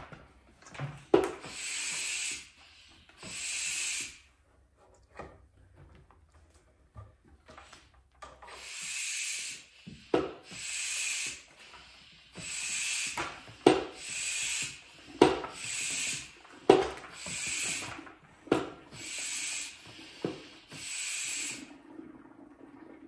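Hand-pumped Mityvac fluid extractor being worked: a run of airy hissing strokes, each starting with a sharp clack of the plunger. There are two strokes, a pause, then about eight more at roughly one every second and a half, pulling vacuum to draw water-contaminated fuel out of the tractor's tank.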